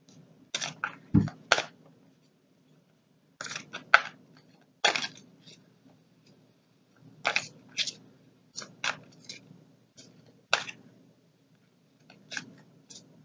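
A deck of oracle cards being shuffled by hand, overhand. It makes short clusters of quick, papery snaps and flicks every second or two as cards slide off the deck.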